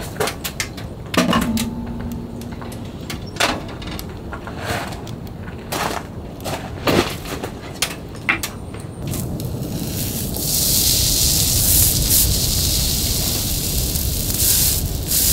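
Small wood-burning camp stove: a metal clank with a short ring near the start, then the fire's sparse pops and crackles. About ten seconds in, a steady high hiss comes in and runs on.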